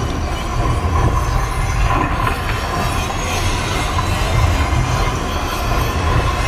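Light show soundtrack played over loudspeakers: a loud, steady rumbling and grinding sound effect with a thin whine running through it.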